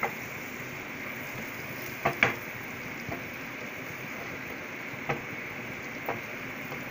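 Butter melting in a hot white nonstick frying pan, sizzling with a steady hiss as it starts to bubble. It is broken by several sharp pops, the loudest pair about two seconds in.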